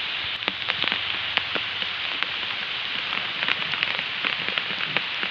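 Steady patter of rain falling on water and surfaces, an even hiss with many irregular sharp drop ticks.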